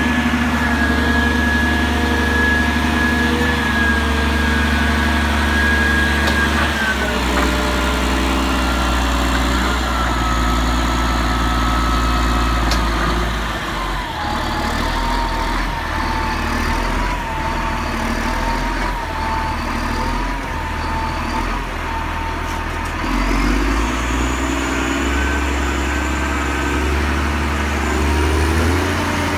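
Caterpillar 160M motor grader's diesel engine running as the machine drives slowly by. A high whine rides over the engine and steps down in pitch twice, about seven and fourteen seconds in, as the engine note changes.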